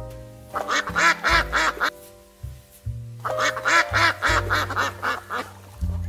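Two rapid series of duck quacks, separated by a gap of about a second and a half, over background music.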